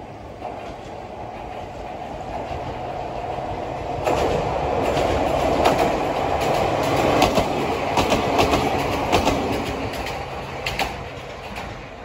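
A Toyama Chiho Railway electric train approaches and passes along the track. Its rumble grows loud about four seconds in, with a run of wheel clacks over the rail joints, then fades as it goes by.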